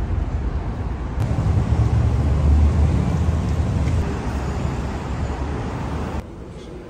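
Loud, low rumbling outdoor city noise, heaviest in the bass. It swells about two to three seconds in and cuts off suddenly about six seconds in.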